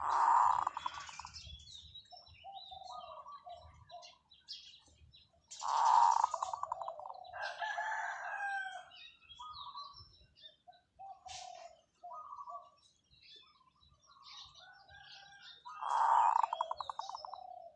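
Zebra dove calling: three loud rolling coos made of rapid pulses, one at the start, one about six seconds in and one about sixteen seconds in, with shorter staccato coos between. Small birds chirp faintly higher up.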